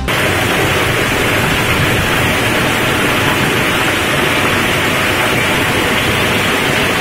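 Heavy downpour of rain: a loud, steady rushing hiss that starts suddenly as the music stops.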